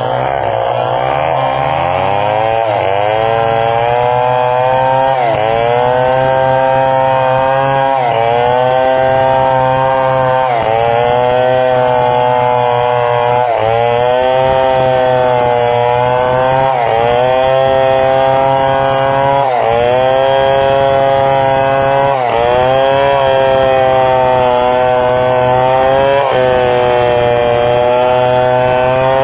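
Stihl 070 two-stroke chainsaw at full throttle, ripping a log lengthwise into boards. The engine pitch sags as the bar bites into the wood under load and then climbs back, over and over, roughly every two to three seconds.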